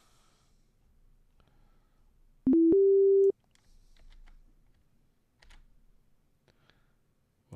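A synthesized note from a Logic Pro software instrument: a pure, plain tone that steps up from a brief lower pitch to a steady one and lasts under a second, about two and a half seconds in. Faint clicks sound around it.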